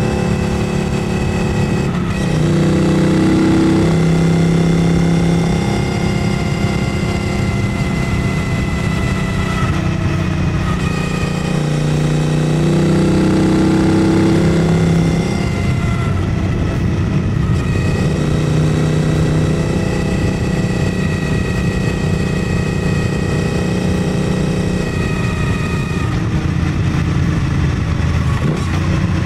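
Triumph Bonneville Bobber Black's 1200 cc parallel-twin running at highway cruising speed, heard from the rider's seat. The engine note dips and picks up again a few times as the throttle is eased and reopened.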